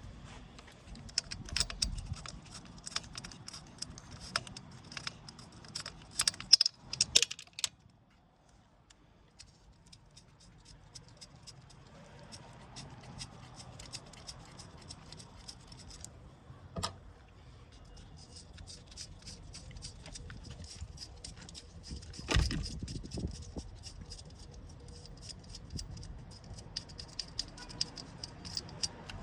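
Socket ratchet wrench clicking in long quick runs as bolts are turned out, with a few louder clunks of metal tools and parts.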